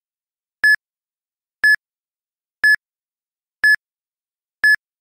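Electronic countdown timer beeping: short, identical beeps, one each second, five in all, with silence between them.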